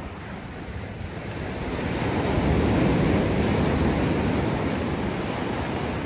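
Ocean surf on a sandy beach: a wave breaking and washing up the shore, swelling over the first few seconds and then easing off slightly.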